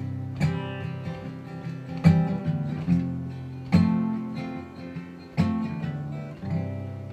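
Steel-string acoustic guitar strummed in about six slow chords, each left to ring and die away, the last one fading out near the end as the song closes.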